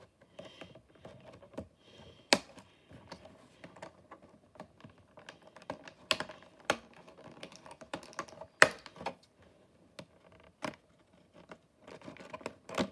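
Hard plastic Bakugan toy pieces and their packaging being handled: irregular clicks and taps, with a few sharper knocks, over a faint steady hum.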